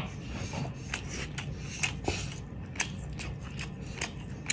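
Close-up eating sounds: chewing cooked lobster meat, and hands pulling apart the cooked lobster shell. These come as scattered sharp clicks and crackles over a low steady hum.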